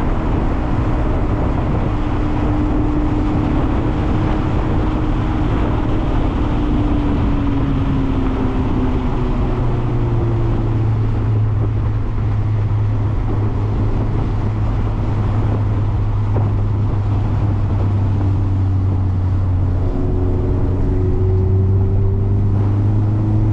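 Mazda MX-5 (ND) four-cylinder engine running at low revs over steady road noise. Its pitch eases down over the first several seconds, holds steady from about ten seconds in, and rises a little near the end.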